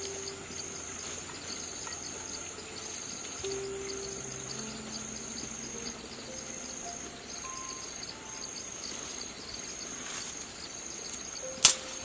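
High-pitched insect trilling in regular pulses about one a second, over faint background music, with a single sharp click near the end.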